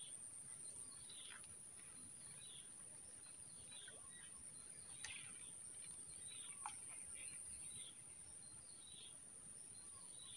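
Faint outdoor ambience: small birds chirping in short calls every second or so, over a steady high-pitched whine.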